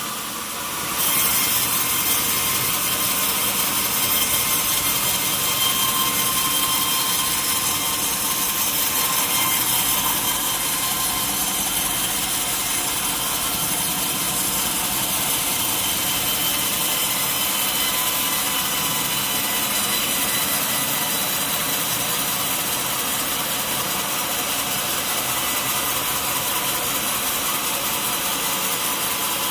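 Sawmill saw cutting steadily through a log, a continuous dense whine of blade in wood that gets louder about a second in and then holds steady.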